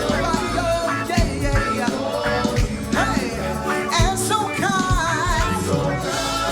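Live gospel praise music: a band with drums plays an upbeat groove while voices sing.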